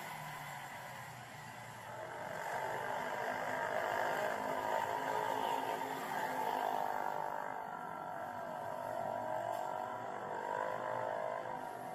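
Street ambience with motor traffic running, a steady wash of engine and road noise that swells and eases.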